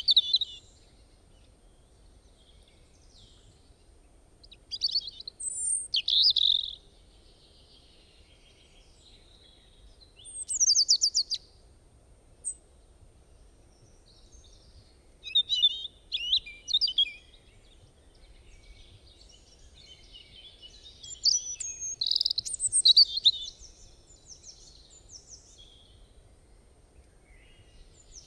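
Birds singing: short bouts of quick, high chirping and twittering, about five of them, separated by pauses of a few seconds.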